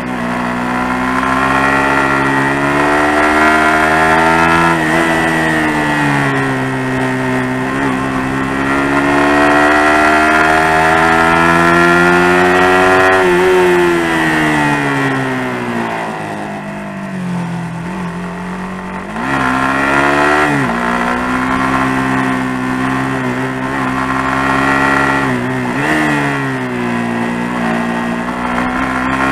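Suzuki GSX-R150's single-cylinder engine under way on a twisty road. The revs climb and fall with the throttle through the bends, with a long easing-off in the middle and several quick changes at gear shifts near the end.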